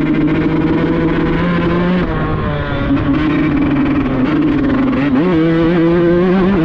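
Two-stroke Kawasaki Ninja engine, grasstrack-tuned, running with a buzzy note. The revs are held with a slight wavering, then the pitch steps up about five seconds in.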